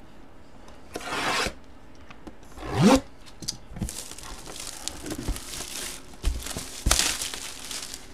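Plastic shrink wrap being slit and pulled off a cardboard trading-card box: scraping, rubbing and crinkling rustles, with a louder squeaky stretch of plastic about three seconds in. More rubbing and rustling follows as the wrap comes away and the box lid is worked open.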